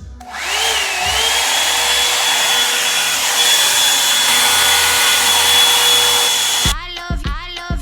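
Revlon One-Step hot-air brush dryer starting up, its motor whine rising and settling, then running with a loud steady rush of air for about six seconds before cutting off. Background music with a beat takes over near the end.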